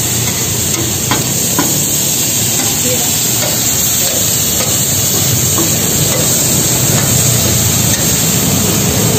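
Pieces of octopus sizzling steadily on a hot flat steel griddle, with a few scrapes and clicks of a metal spatula and tongs turning them.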